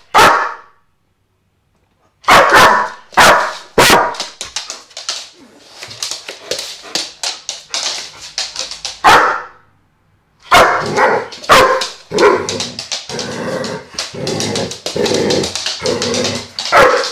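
German shepherd barking loudly in quick runs of barks, with short pauses about two seconds in and about ten seconds in.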